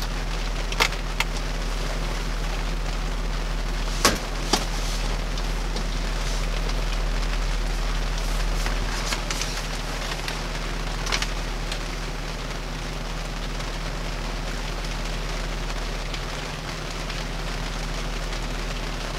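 Rain falling on the Jeep, heard from inside the cabin as an even hiss, over a steady low hum. A few sharp clicks stand out: two about a second in, two about four seconds in and one near eleven seconds.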